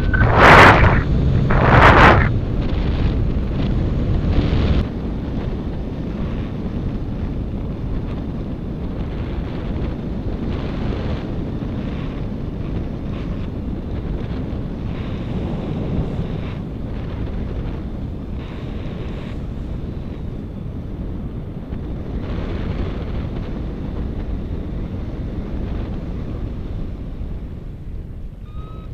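Wind buffeting the microphone in paraglider flight: two loud gusts in the first two seconds, then a steady rushing of air.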